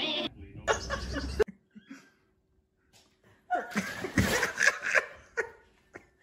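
A short noise, then a pause of about two seconds, then a person laughing in bursts for about two seconds.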